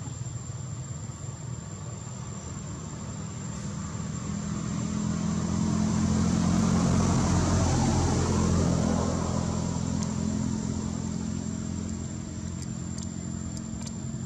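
A motor vehicle passing by: a low engine hum that grows louder, peaks about halfway through, then fades away. A steady thin high whine runs underneath, and a few faint clicks come near the end.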